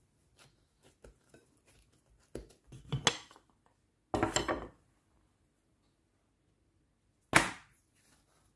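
Hands pressing and patting pizza dough flat on a granite countertop: soft taps and scuffs of dough on stone, louder rubbing noises in the middle, and one sharp knock near the end.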